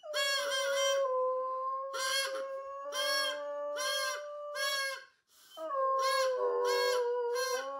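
A black-and-tan hound howling along with a child's harmonica. The harmonica plays short repeated chords while the dog holds long, steady howls, breaking off about five seconds in and starting again.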